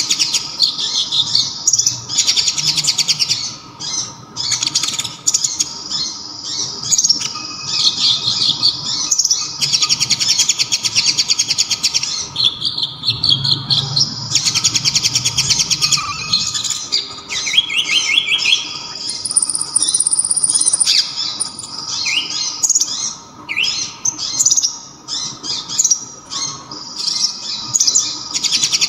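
Konin (kolibri ninja) songbird singing a loud, rapid, high trilling song in repeated bursts of a second or two, broken by short pauses and quicker chirps. A faint steady tone runs underneath.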